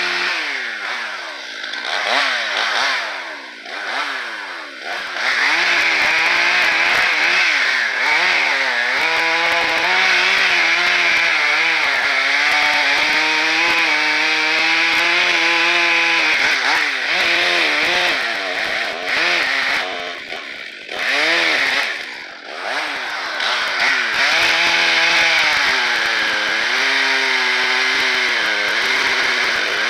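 A two-stroke chainsaw revving, then running at full throttle through a cut, its pitch sagging and recovering under load. It drops back twice about two-thirds of the way through, then cuts again.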